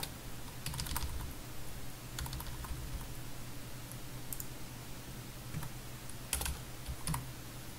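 Computer keyboard keystrokes: scattered short runs of a few key presses with pauses between them, over a low steady hum.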